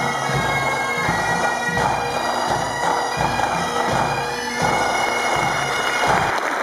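Pipe band of Highland bagpipes playing a tune over their steady drones, with a bass drum beating evenly and snare drums; the music ends about six seconds in.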